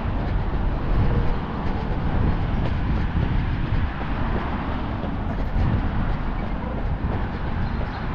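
Road traffic passing steadily, a continuous low rumble of engines and tyres that swells and eases without a break.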